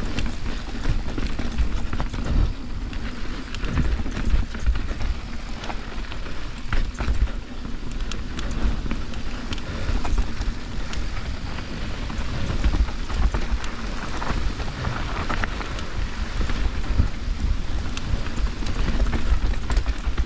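Mountain bike riding down a dirt trail: tyres rolling over dirt and rock, with the bike's frame and chain rattling in many short clicks and knocks, under a heavy rumble of wind on the microphone.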